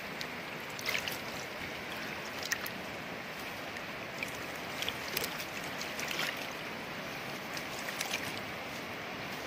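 Steady rushing of a wide, fast-flowing river current, with a few faint brief clicks here and there.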